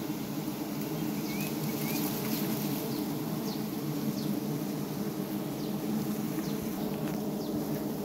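Wild honey bees buzzing around their large open comb: a steady low hum. A few short high chirps sound over it.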